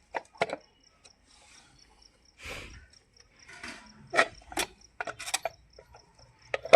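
Scattered sharp clicks and knocks of hand tools and parts being handled on a motorcycle wheel, a brief rush of noise midway, over a cricket chirping in a steady fast rhythm.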